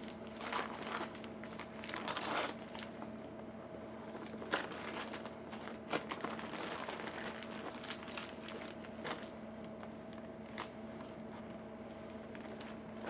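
Christmas wrapping paper crinkling and tearing as a boxed toy is unwrapped by hand, in bursts of rustling loudest about half a second and two seconds in, then a few sharp taps and clicks of hands on the box, over a faint steady hum.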